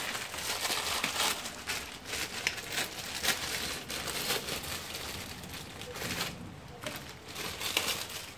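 Plastic instant-noodle packet crinkling and crackling in the hands as it is opened: irregular rustles and small crackles.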